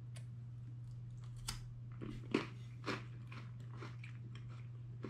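Biting into and chewing a mustard-topped Kit Kat chocolate wafer bar: a run of crunches and mouth clicks, the sharpest about two and a half seconds in, over a steady low hum.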